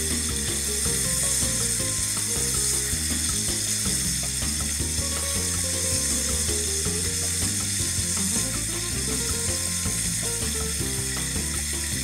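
Bone-in short ribs and chuck roast pieces searing in hot oil in a pot: a steady frying sizzle.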